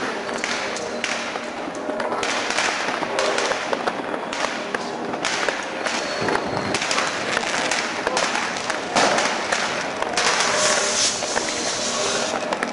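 Many fireworks and firecrackers going off, a dense, unbroken run of bangs and crackles.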